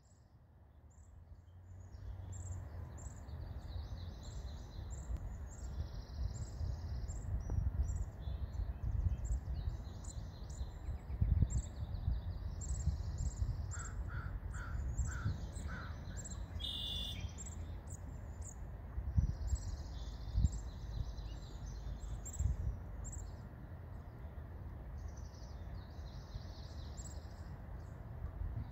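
A brood of ducklings peeping: a near-continuous stream of short, high peeps over a steady low rumble. About halfway through, four short, evenly spaced lower calls come in quick succession.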